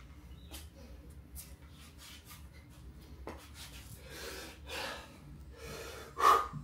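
A man breathing hard, winded from heavy kettlebell swings: a run of heavy exhales that grow stronger, ending in one loud, forceful exhale as he grips the bell for the next set.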